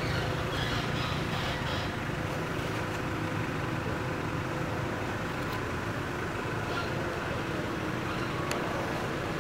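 Steady low rumble of background noise with no clear breaks, with faint higher sounds in the first two seconds.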